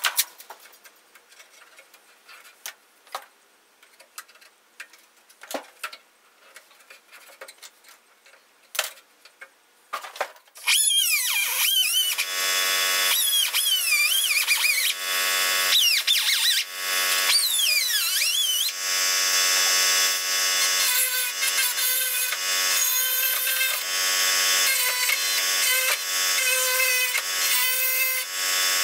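A few light clicks and taps, then about ten seconds in a high-speed power cutting tool starts and runs, cutting into the steel dash to square up the radio opening. Its high whine dips and recovers repeatedly as the wheel bites into the metal.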